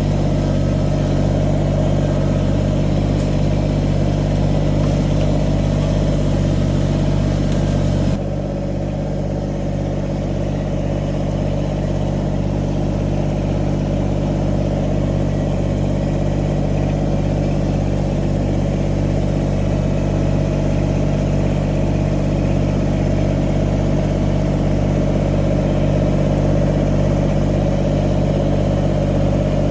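Kubota 2350 tractor's diesel engine running steadily. About eight seconds in, the sound abruptly turns duller and a little quieter.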